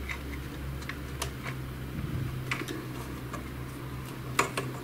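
Small plastic printer parts clicking and tapping as the pickup-roller clutch is fitted onto its shaft in a Samsung ML-1210 laser printer. The clicks are scattered and irregular, with two sharper ones near the end, over a steady low hum.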